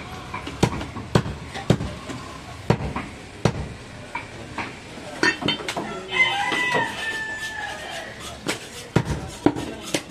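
A heavy cleaver chops goat meat on a wooden butcher's block in sharp, single knocks every half second to a second. A rooster crows once, starting about five seconds in.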